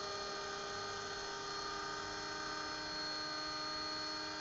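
Electric RC model helicopter with an Agusta 109 scale fuselage hovering: a steady whine from the electric motor, gears and spinning rotors, made of several held tones.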